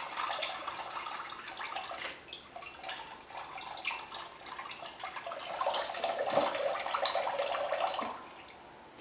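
Coconut water running out of a freshly cracked coconut into a bowl. The stream gets louder about five and a half seconds in, then stops suddenly about a second before the end.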